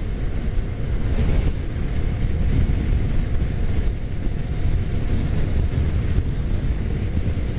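Suzuki motorcycle riding at freeway speed: a steady rumble of engine, road and wind noise on the microphone, with no breaks or sudden events.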